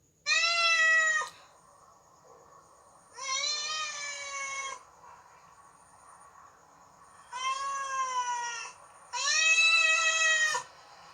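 Domestic cat meowing four times, each meow a drawn-out call of about a second or more, spaced a few seconds apart.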